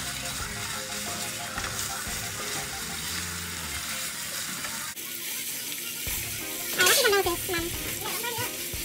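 Ground meat sizzling as it browns in a frying pan and is stirred, with a steady hiss. About seven seconds in a short pitched call falls in pitch.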